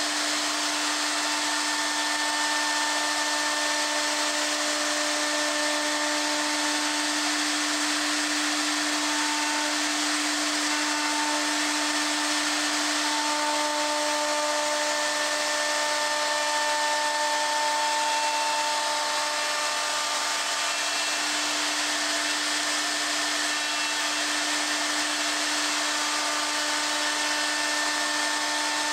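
High-speed router spindle on a dovetail jig machine running with a steady whine as its small bit cuts into the end of a wooden board for dovetail joints.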